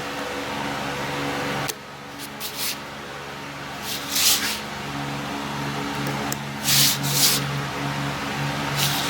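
Short scraping rubs against a tire's tread, several spaced a few seconds apart, over a steady low hum.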